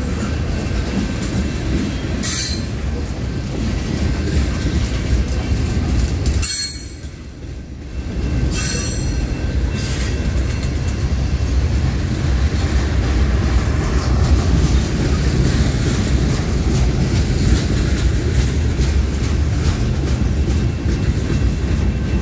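Freight cars of a long CSX train, mostly tank cars, rolling past close by: a steady heavy rumble of steel wheels on rail with rapid clicking and a few brief high-pitched wheel squeals. The sound dips in loudness for about a second and a half around seven seconds in.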